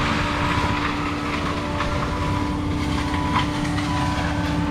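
Forestry mulcher machine running steadily: a low engine drone with a constant steady hum over it, and a couple of faint sharp knocks, the clearest about three and a half seconds in.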